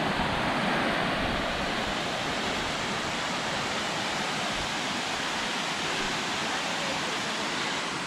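Steady rush of mountain water, a continuous even noise.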